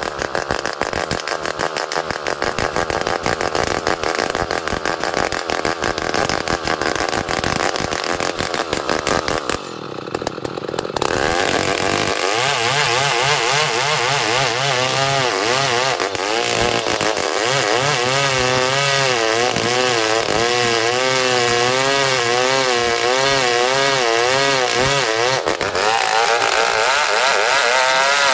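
Two-stroke chainsaw running at high revs while cutting lengthwise through ulin ironwood. It drops off briefly about ten seconds in, then the engine note wavers up and down as the chain works through the wood under load.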